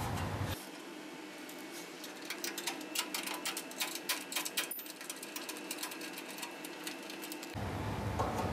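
Quick, irregular clicking with light metal scraping: a hand screwdriver turning out the screws of a welding machine's sheet-steel casing.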